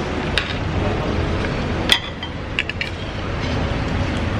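Forks and spoons clinking and scraping on plates while people eat: a few sharp clinks, the loudest about two seconds in and a quick cluster soon after, over a steady low background rumble.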